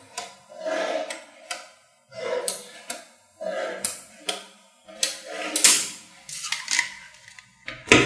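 Small magnetic balls clicking and rattling as blocks of them are pressed and snapped together, in quick irregular bursts.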